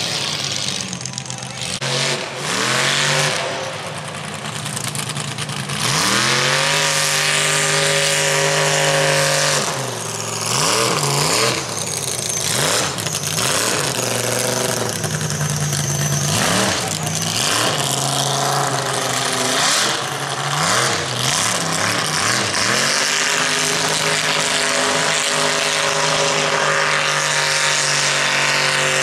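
An engine running, revved up and down several times between stretches of steady running.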